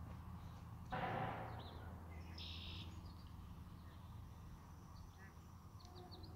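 Faint outdoor ambience with birds chirping on and off over a low steady rumble; a short rushing burst about a second in is the loudest sound.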